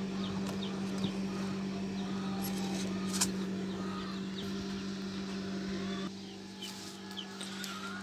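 A steady low electrical hum that cuts out about six seconds in. Over it are faint high peeps from poultry and a few light clicks of eggshells as eggs are turned by hand on an incubator tray.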